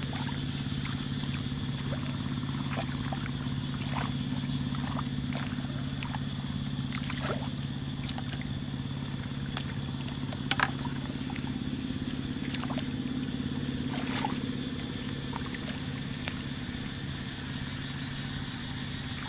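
Hands splashing and sloshing in shallow muddy paddy water as fish are groped for, with scattered small splashes and one sharper splash about halfway through. Under it runs a steady low motor-like drone, and a high chirp repeats about twice a second.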